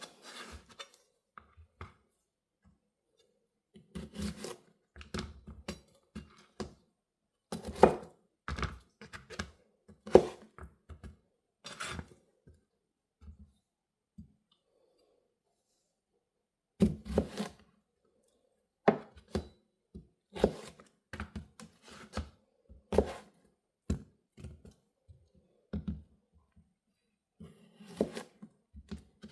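Knife slicing mini cucumbers one-handed: the blade knocks down in uneven short clusters of strokes with pauses between.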